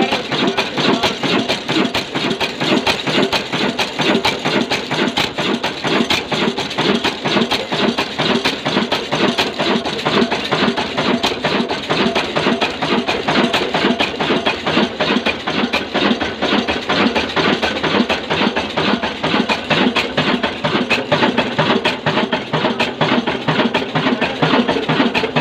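Slow-speed 18–20 HP stationary diesel engine with heavy flywheels, rated 300 rpm, running steadily with an even rhythmic beat.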